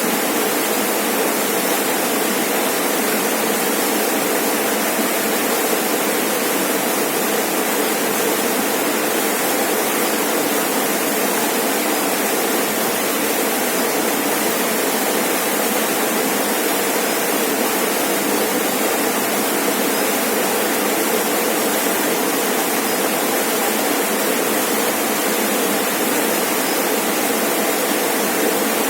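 Rainforest waterfall: water falling and splashing in a steady rush, unchanging throughout.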